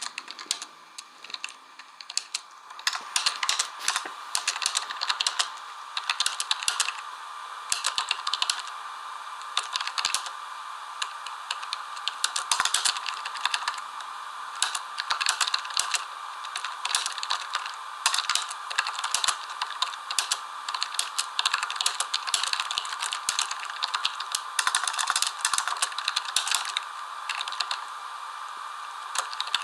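Rapid, irregular clicking and rattling of small hard objects, like fast typing on a keyboard, coming in dense bursts of a second or two, over a faint steady tone.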